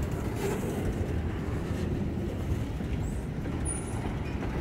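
Freight boxcars rolling past on the rails, a steady low rumble of steel wheels on track.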